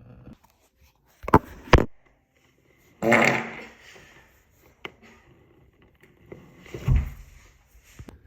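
A person farting several times: two short sharp blasts about a second in, a longer, noisier one that trails off about three seconds in, and a low one near the end.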